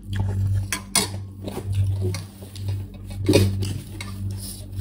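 Fork clinking against a bowl while eating ramen, a few scattered clinks over a steady low hum.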